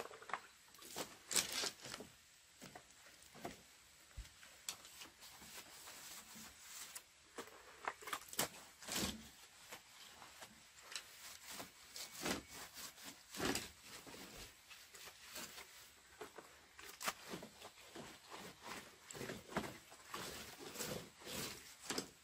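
Irregular light knocks, clicks and rustles, as of things being handled and moved, over a faint steady high-pitched tone.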